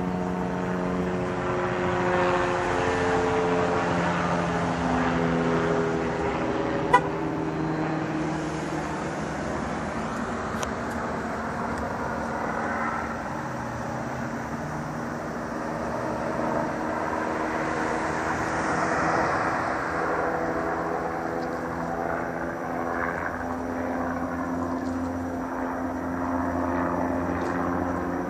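Police helicopter circling overhead: a steady rotor and engine drone whose pitch slides slowly down over the first few seconds and climbs again near the end as the helicopter moves. A single sharp click about seven seconds in.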